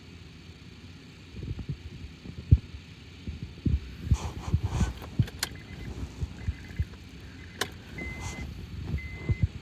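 Irregular low thumps and a few sharp clicks of handling. About eight seconds in, a steady electronic beep starts repeating about once a second, typical of a car's warning chime or a scan tool's prompt.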